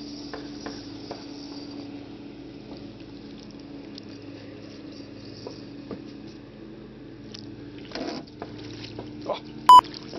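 Water sloshing and small splashes as a hooked bass is netted beside an aluminium boat, with a noisy splash about eight seconds in. A steady low hum runs underneath, and a short, loud high tone sounds near the end.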